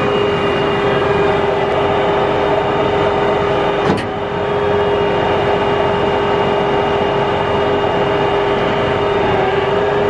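John Deere 8320RT track tractor's diesel engine running steadily at the rear of the tractor, with a constant whine over the engine note. A single sharp click about four seconds in.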